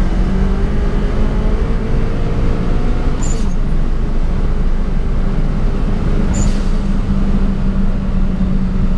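Turbocharged 16-valve engine of a Volkswagen Polo G40, heard from inside the cabin, pulling hard at high revs as the car accelerates past 150 km/h. The drive is broken briefly twice, about three and six seconds in, each time with a short high hiss, as at a gear change.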